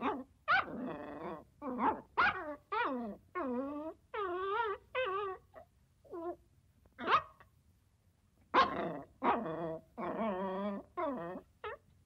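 Dog barking in quick irregular volleys. Some calls are short and sharp; others are drawn out with a wavering pitch. There is a short lull past the middle.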